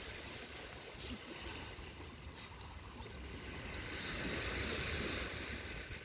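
Small waves lapping and washing on a sandy shore, with a low wind rumble; a louder hissing wash swells about four seconds in and fades near the end.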